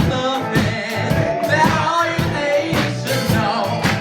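Live band playing an upbeat song, with a steady drum-kit beat and a singing voice over it.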